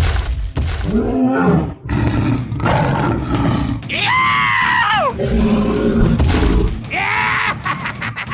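Dubbed monster growls and roars: several drawn-out calls whose pitch rises and then falls, the loudest about four seconds in, over a low rumble.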